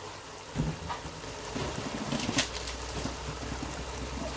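Spiced chicken pieces simmering in a steaming pot with a soft, steady sizzle. A dull knock comes about half a second in and a sharp click near the middle.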